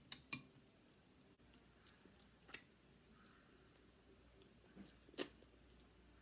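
Close-up eating sounds from a seafood boil: a handful of short, sharp clicks over near silence, the loudest near the start and about five seconds in.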